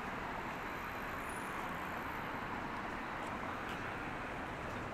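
Steady background noise of a busy city street, an even wash with no clear voices standing out.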